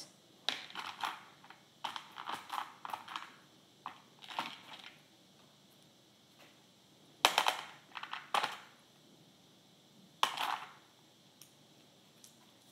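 Small plastic beads clicking and rattling as they are picked up and threaded onto a sewing needle, in scattered short clicks with two louder ones about seven and ten seconds in.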